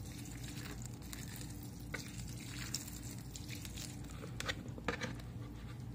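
Water pouring from a plastic watering can onto potted pothos soil, with faint crackling and ticking as the soil soaks it up, over a low steady hum.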